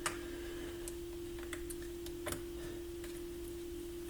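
A few small, irregular clicks and ticks of fingers picking at a plastic tie on the wiring inside a stereo receiver, over a steady hum.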